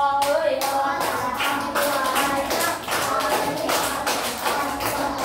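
A class of children clapping in a steady rhythm, about four claps a second, with their voices singing or chanting along.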